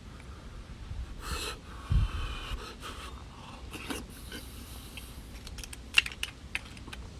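A person eating beef bone marrow up close: sucking and chewing sounds with audible breathing, and a few sharp clicks about six seconds in.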